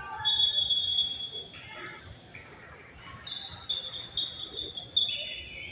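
Athletic shoes squeaking on a gym floor during play: a long squeak near the start, then a run of short squeaks at changing pitches.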